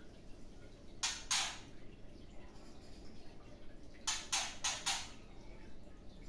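Caged white-rumped shama giving short, harsh, noisy calls: two about a second in, then a quick run of four about four seconds in.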